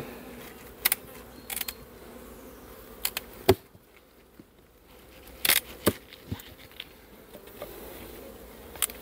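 Honeybee colony buzzing as a steady low hum, with several sharp clicks and knocks as the hive is opened; the loudest knock comes about three and a half seconds in.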